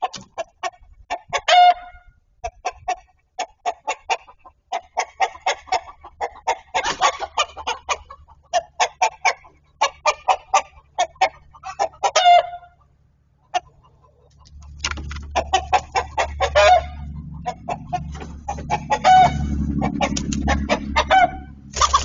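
Chickens clucking in quick runs of short, sharp clucks, with a low steady rumble joining about two-thirds of the way through. Right at the end comes a sudden loud flurry as a hawk strikes into the run.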